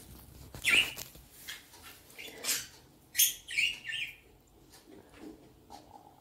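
A small bird chirping, a handful of short high calls about a second in and again in a quick cluster between two and four seconds in.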